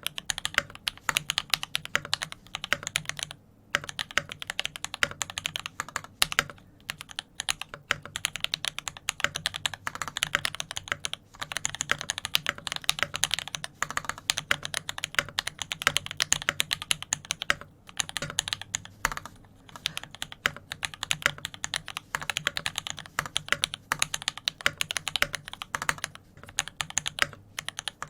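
Steady, fast typing on a custom TX 65%-size mechanical keyboard with a 1.5 mm brass plate, sandwich mounting and GMK keycaps: rapid key strokes in a continuous stream, broken by brief pauses about three and a half, six and a half and eighteen seconds in.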